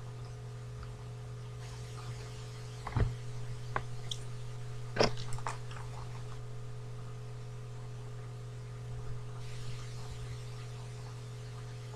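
Steady electrical mains hum from the recording setup, with a few short clicks and knocks about three and five seconds in.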